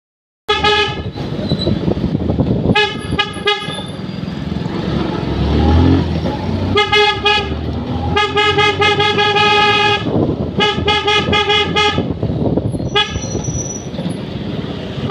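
Motorcycle horn sounding over and over: a few single toots, then quick strings of short beeps in rapid succession, some with a wavering pitch. Engine and traffic noise runs underneath.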